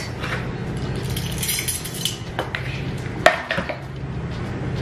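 Metal measuring spoon clinking and scraping in a wooden salt box as a tablespoon of salt is scooped out, with one sharp clink a little after three seconds, over a low steady hum.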